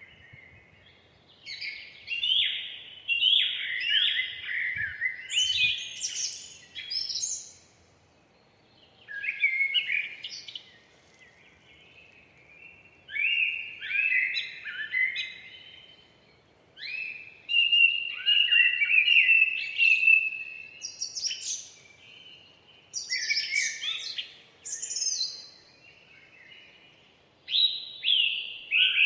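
Songbirds singing in phrases of quick chirps and trills a few seconds long, with short pauses between them.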